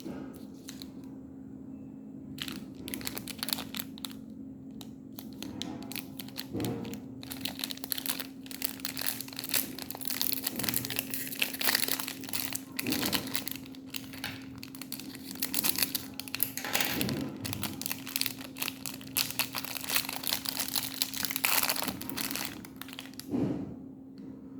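Chocolate bar wrappers being crinkled and torn open: dense, irregular crackling that starts a couple of seconds in and stops shortly before the end. A steady low hum runs underneath.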